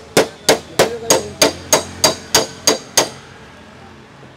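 Paintless dent repair: quick, light hammer taps on the steel front fender of a Hyundai Accent, about three a second, each with a short metallic ring. The taps stop about three seconds in.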